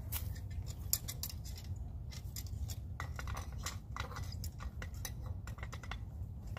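Pliers clicking and scraping irregularly against the metal nut of a conduit fitting as it is tightened onto an outdoor electrical box, over a steady low rumble.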